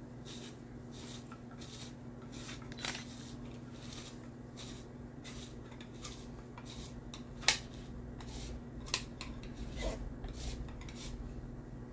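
Handheld Tupperware spiralizer twisted by hand on a zucchini, its blade shaving the flesh in a run of short rasping scrapes, about two or three a second. A few sharper clicks come in between, the loudest about seven and a half seconds in.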